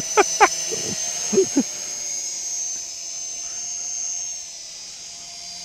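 DWI X35 toy quadcopter's motors and propellers whining in flight, a steady high whine with a slightly wavering pitch. The whine grows quieter about four seconds in as the drone flies away.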